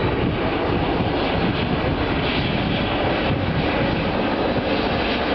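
Airbus A380 jet engines running during a slow, low flyby, heard as a steady, even noise.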